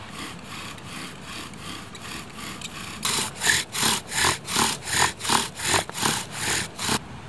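Bow drill fire-making: an aspen spindle spun by a sawing bow, grinding in its notch on an aspen hearth board, a rhythmic back-and-forth rasp of wood on wood. Softer strokes at first, then from about three seconds in louder, quicker strokes, about three a second, until they stop suddenly near the end. By then the hearth is smoking, the friction hot enough to form an ember.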